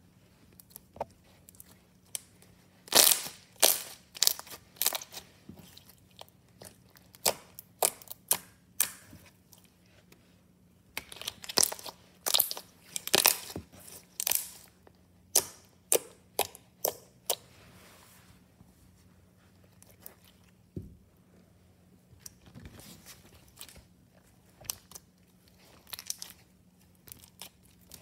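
Glossy slime being poked, pressed and stretched by hand, giving irregular sticky clicks and bubble pops in quick clusters, softer and sparser in the last third.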